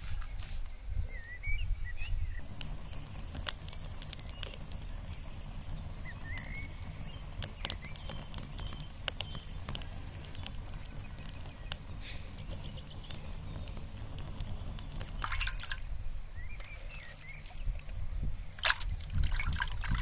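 Wood campfire of stacked sticks crackling as it catches, with scattered sharp pops over a steady low rumble.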